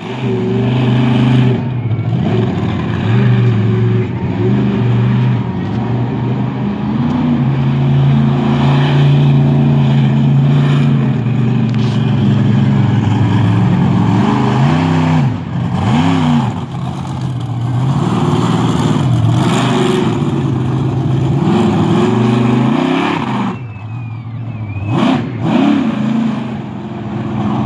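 The Raminator monster truck's engine running hard as it drives over a row of cars. The revs hold high and steady at first, then rise and fall several times in the second half.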